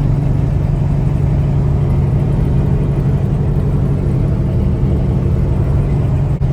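Peterbilt semi truck's diesel engine running steadily at highway cruising speed, a constant low drone with road noise.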